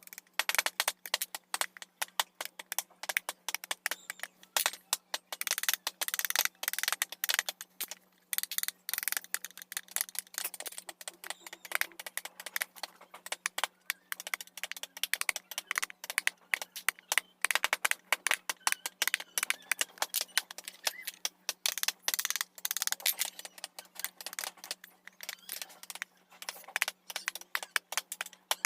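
Hand carving tools working teak wood: a dense run of sharp, irregular taps and clicks, many per second, with brief pauses. A faint steady hum sits underneath.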